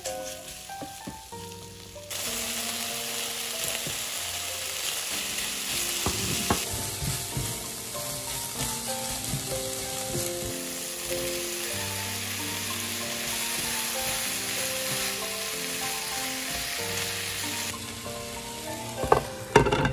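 Pork pieces, then onion, sizzling as they fry in a nonstick frying pan while a spatula stirs them. The sizzle starts suddenly about two seconds in and drops away near the end, followed by a few sharp knocks. Background music plays throughout.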